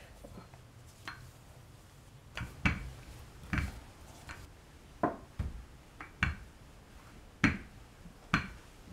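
Rolling pin rolling out bread dough on a floured counter, with a short knock about once a second as the pin comes down at each stroke; the first couple of seconds are quiet while the dough is pressed flat by hand.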